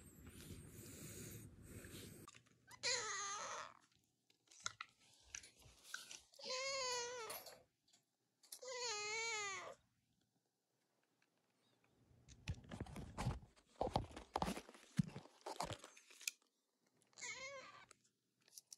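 Male calico cat meowing: four drawn-out meows with a wavering pitch, the first about three seconds in, two close together in the middle and a short one near the end. A stretch of clicking and crunching comes between the middle meows and the last one, and a low rumble is heard at the start.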